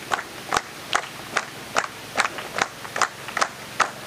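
A group clapping hands in a steady rhythm, about two and a half claps a second.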